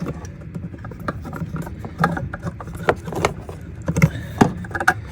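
Irregular clicks, knocks and small rattles of hands working a plastic clip and bracket loose under a car's hood.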